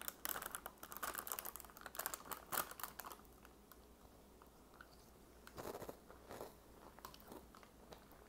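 Crunching and chewing on a hardened breadstick, a quick run of crisp crunches in the first three seconds, then quieter chewing.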